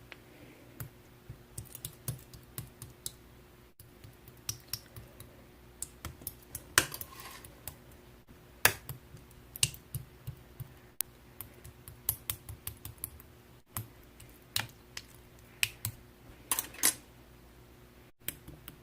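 Slime being handled by hand, making irregular sticky clicks and small pops with short pauses between them.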